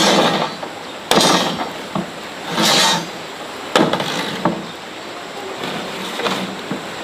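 A few sharp knocks: one about a second in, then two close together around four seconds in, with fainter taps after. A short rushing noise comes a little before three seconds in.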